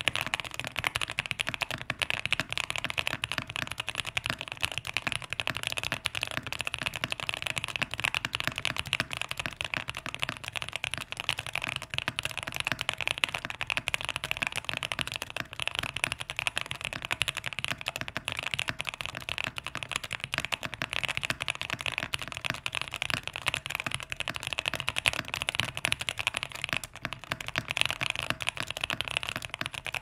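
Continuous fast typing on a QK65 mechanical keyboard with stock, unlubed 67g Tangerine linear switches in a POM plate, under GMK keycaps. The keystrokes come as a dense, even stream of sharp clicks.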